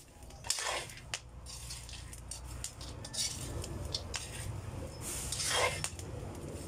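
Metal spoon scraping and clinking against a frying pan as cacao seeds are stirred, dry-roasting over a wood fire until they are nearly done. The strokes are irregular, with a longer scrape about five seconds in, over a steady low rumble.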